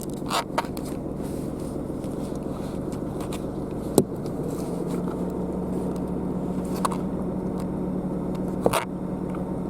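An engine running steadily at idle, a low even hum, with a few short sharp clicks and knocks spread through it, the loudest about four seconds in.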